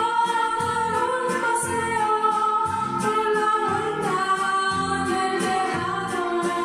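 Upbeat children's song playing, with a steady bass beat under a held melody line.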